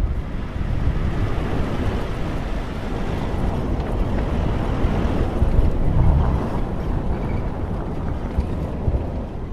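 Car driving on a rough dirt road: steady rumble of tyres and engine with wind buffeting the microphone.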